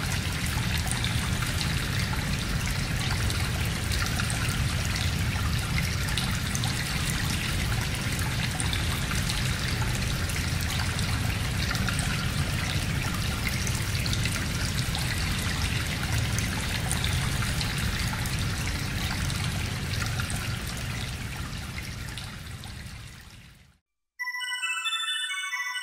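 Steady trickling, rushing water sound that fades away near the end. After a moment of silence, bright bell-like notes follow one another quickly.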